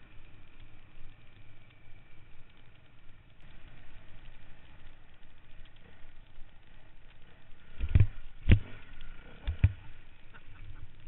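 Off-road motorcycle engine idling steadily, with four sharp knocks about eight to ten seconds in.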